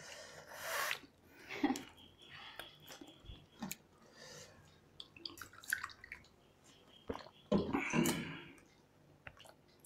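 Eating by hand at a metal plate: a scatter of short wet slurps, lip smacks and clicks as fingers scrape up the last food from a steel plate and are licked clean. The loudest slurp comes about eight seconds in.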